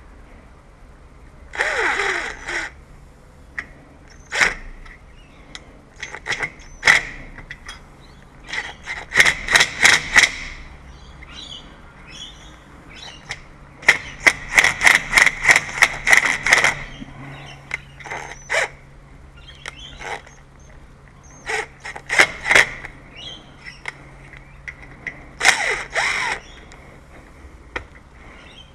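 Hand tools working on a door lock: scattered sharp metallic taps and clicks, two quick runs of repeated strikes (the longer one about four or five a second), and a couple of longer, noisier scraping bursts near the start and near the end, over a faint steady hum.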